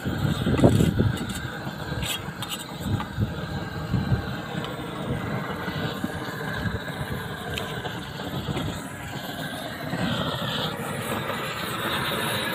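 Propane roofing torch burning steadily as it heats the seam of a torch-on bitumen membrane, with wind buffeting the microphone.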